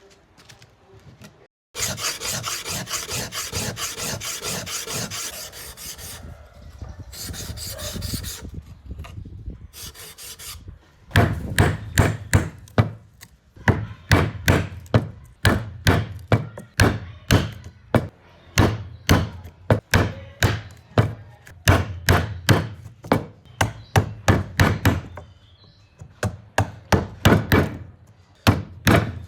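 A hand tool worked back and forth over cedar wood, rasping or scraping in regular strokes of about two a second, after a few seconds of continuous scraping near the start.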